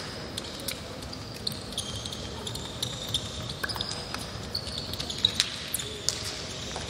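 Many short high-pitched squeaks of sports shoes on a wooden court floor, with scattered sharp taps and slaps from footsteps and hands meeting along the handshake line.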